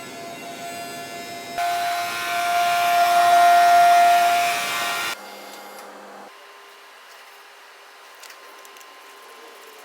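Oil-sealed vacuum pump running with a steady motor whine, loudest in the middle. It drops abruptly about five seconds in, and again a second later, to a quieter steady hum.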